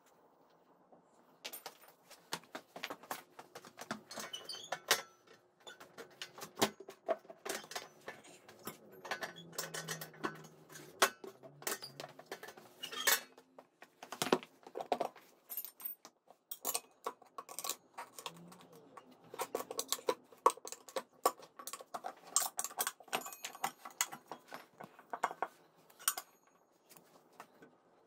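Steel hand tools and tire levers clinking and knocking against a motorcycle's alloy wheel rim as the front tire is worked off, many short sharp metallic knocks at uneven spacing.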